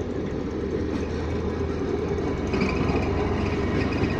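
Railroad speeder car (track inspection motor car) running along the rails as it approaches and passes; its small engine hums steadily and gets a little louder about halfway through.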